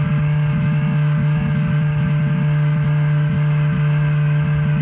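A 7-inch FPV quadcopter's four 2808 1300 kV motors and propellers droning at one steady pitch. It is heard close up from the camera mounted on the drone, with wind buffeting the microphone in the low end.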